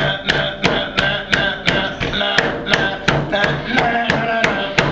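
Music with a steady pounding beat of about three strikes a second under sustained pitched tones and a wavering melody.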